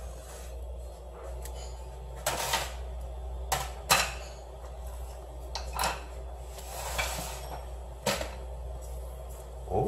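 Knocks and clatter of kitchen work at a cutting board and counter: about five sharp strikes, the loudest about four seconds in, over a steady low hum.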